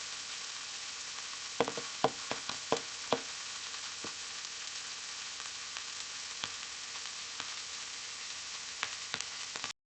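Butter melting and sizzling on heat: a steady frying hiss with sharp pops and spits, a cluster of them about a second and a half in and a few more near the end. It cuts off suddenly just before the end.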